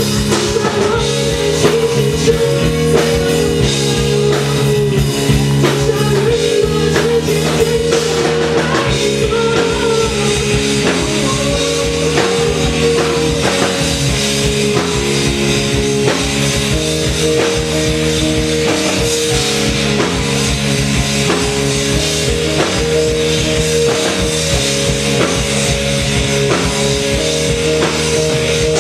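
Live rock band playing an instrumental passage: a steady drum-kit beat under sustained keyboard chords and bass.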